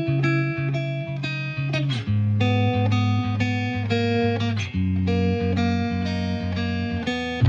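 Background music: a plucked guitar melody picking out a steady run of notes over a low bass line.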